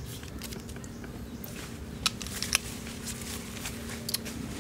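Hands rubbing and handling small green mangoes, with a few sharp clicks about two seconds in and another near the end.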